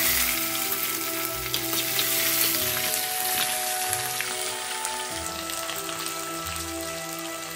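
Chopped shallots and spices sizzling in hot coconut oil in a clay pot, stirred with a metal spoon. The sizzle is loudest as it starts and settles down after. Soft background music plays beneath it.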